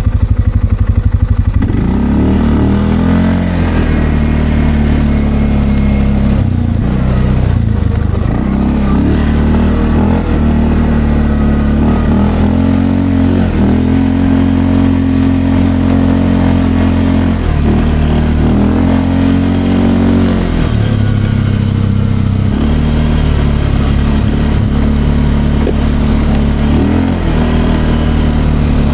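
Linhai Landforce 550L ATV engine running under way, low and chugging for the first second or two, then rising and falling in pitch again and again as the throttle is opened and eased off.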